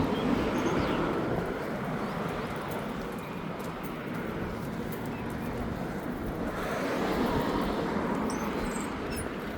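Road traffic passing on a street: a steady wash of tyre and engine noise that swells and fades, once near the start and again near the end.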